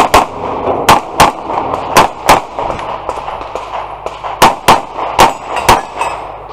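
Handgun fired rapidly in close pairs of shots, about ten shots in all, with a pause of about two seconds in the middle, and steel plate targets clanging as they are hit.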